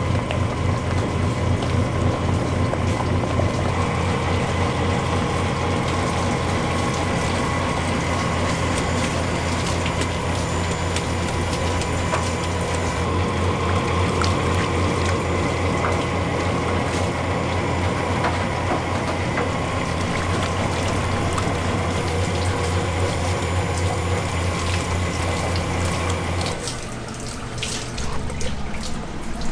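Rice-cake extruding machine running with a steady, fast-pulsing low hum, over running water. The machine hum stops about 26 seconds in.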